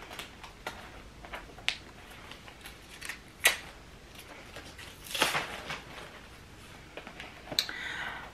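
Handling of a small white vegan-leather Telfar shopping bag: scattered light clicks and taps, a sharper click about three and a half seconds in, and a brief rustle around five seconds in.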